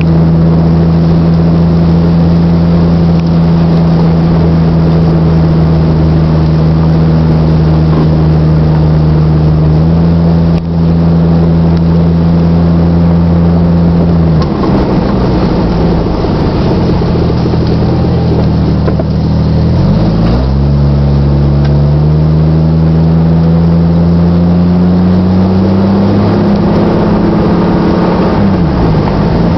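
Exhaust of a 1997 Jeep Grand Cherokee ZJ's 4.0-litre straight-six, running through a glasspack in place of the factory muffler. The engine holds a steady note while cruising. About halfway through the pitch drops and wavers, then it climbs steadily as the Jeep accelerates, and falls again near the end.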